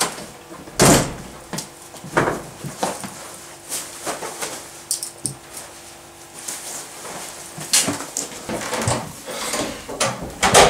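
An apartment door being handled, opened and shut, giving a series of knocks and clicks. The loudest come about a second in and again near the end.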